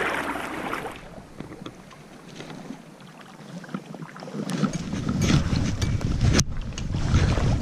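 Shallow stream water splashing as a small rainbow trout is let go from the hands. After a cut, low wind rumble buffets the camera microphone over a flowing river, growing louder about halfway through, with a single sharp click near the end.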